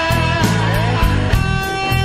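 Blues rock instrumental: an electric guitar lead with bending, sliding notes over bass and drums keeping a steady beat.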